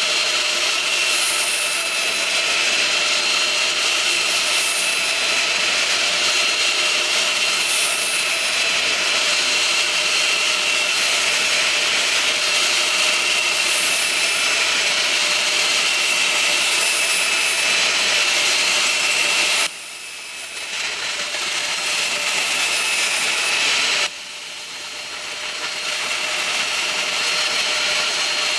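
A woodworking machine motor running steadily with a loud, high whine, as when cutting door frame material. The sound drops off suddenly twice in the last third and builds back up each time.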